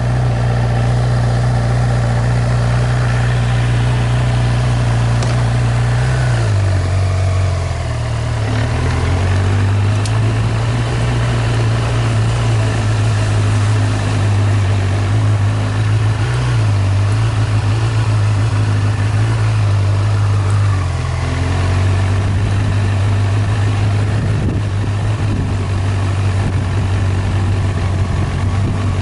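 Motorcycle engine running steadily at low riding speed, its low hum dropping and rising in pitch a few times as the throttle changes.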